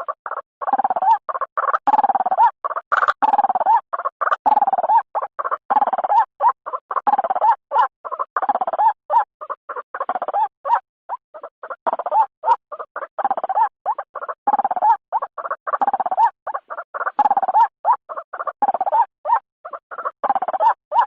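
A truok bird calling without pause: a rapid, harsh run of short calls several times a second, broken by a longer call that dips lower about every second and a half.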